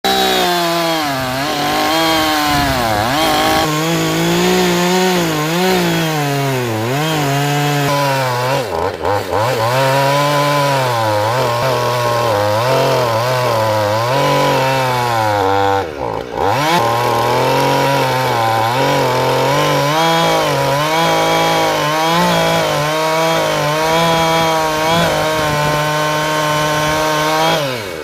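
Two-stroke chainsaw running at high revs while cutting oak logs. Its engine pitch sags and recovers again and again as the chain bites. Twice it dips sharply and picks back up: about a third of the way in and about halfway through.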